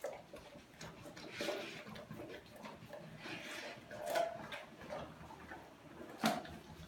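Doberman eating raw food from a stainless steel bowl: irregular chewing and crunching, with the metal bowl knocking and scraping on the tile floor a few times.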